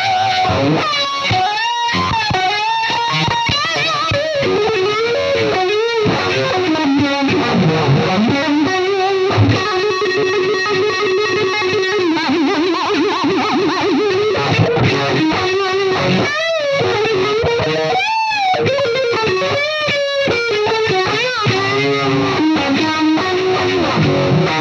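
Distorted electric guitar played through a Roger Mayer Voodoo-Vibe pedal: a lead line of sustained, bent notes with a throbbing, wavering modulation. One note is held and wobbles for several seconds midway.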